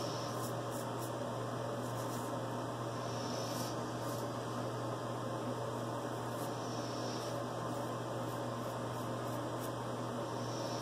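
A steady low hum, with faint rasping strokes every few seconds of a vintage Frederick Reynolds straight razor scraping through lathered stubble on the neck.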